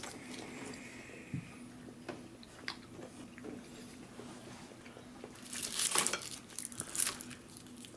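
A mint hard candy with a chocolate centre being bitten to crack it open: faint crunches and clicks, with a louder, noisy spell of crunching about six seconds in.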